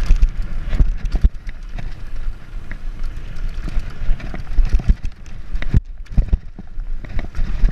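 Mountain bike riding fast down a dirt and gravel trail: tyres running over the loose surface, the bike rattling and knocking over bumps, with a low wind rumble on the microphone.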